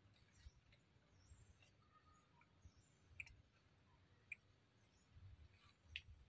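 Near silence with a few faint scattered clicks and brief high chirps.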